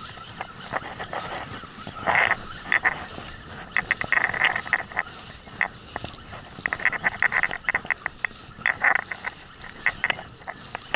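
Fishing reel drag clicking in short rapid bursts as a hooked fish pulls line out against a loosely set drag, the drag slipping now and then. Each burst is a quick run of sharp clicks, separated by pauses over a steady hiss of wind and water.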